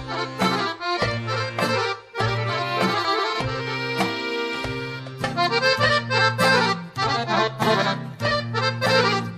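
Piano accordion playing the instrumental introduction to a Bosnian sevdalinka. A melody runs over a steady line of low bass notes and rhythmic chords, with a brief break about two seconds in.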